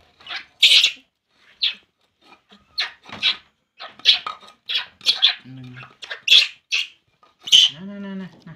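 Baby macaque crying: a string of short, high-pitched squeals and whimpers in quick succession, about one to two a second.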